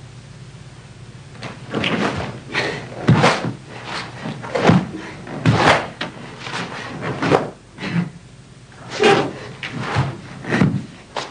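A karate practitioner performing Goju-ryu's Shisochin kata: about a dozen sharp swishes and thumps at uneven intervals, from the gi snapping with strikes and feet stepping on a wooden floor.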